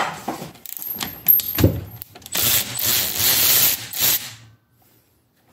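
Wrench turning a 14 mm through-bolt in a Yamaha PW50's frame: irregular metal clicks and knocks, then a couple of seconds of loud metallic scraping that stops abruptly.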